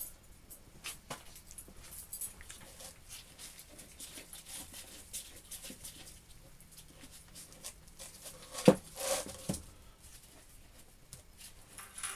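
Small metal clicks and taps from a homemade steel machine vise as it is handled and its leadscrew and sliding jaw are worked, with one sharp metal knock about two-thirds of the way through.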